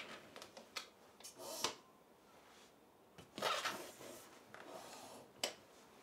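Rustling, shifting sounds of a person moving on an ITOKI vertebra03 office chair, with two longer rustles and a single sharp click about five and a half seconds in.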